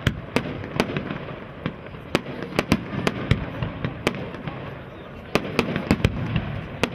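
Aerial fireworks display going off: a rapid, irregular run of sharp bangs and crackles, bunched in two busier flurries, over a steady background rumble.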